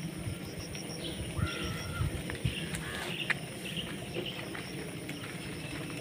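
Outdoor ambience with scattered short bird chirps, a steady high-pitched hum and a few sharp clicks and knocks over a low rumble.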